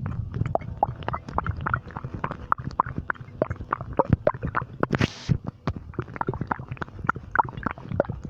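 Human stomach gurgling and rumbling: a dense stream of small pops and bubbling gurgles, with a short hiss about five seconds in.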